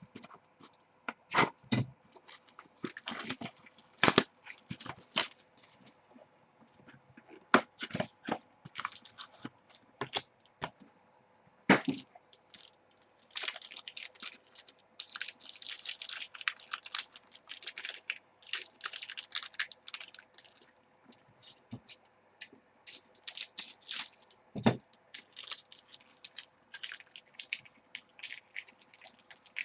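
Packaging being torn open and crinkled as a new trading-card box is opened: irregular crackling and tearing bursts with sharp snaps and clicks.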